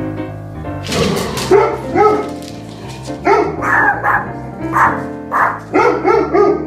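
A dog barking, about ten short barks in irregular groups, over background music.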